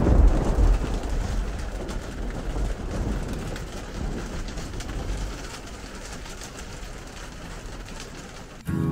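Heavy rain drumming on a motorhome's roof and windows, with a low thunder rumble at the start that dies away over several seconds.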